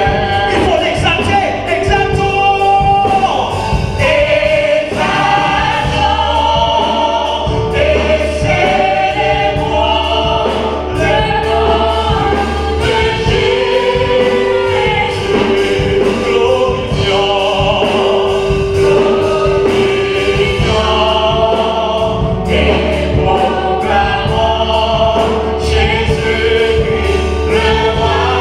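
Gospel choir singing a hymn with instrumental accompaniment, a steady bass line and beat underneath.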